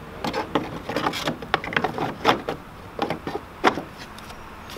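Nissan 240SX hard plastic blower motor housing clicking and knocking as it is handled and turned over, an irregular string of taps and clacks with two louder knocks a little after two seconds and past three and a half seconds in.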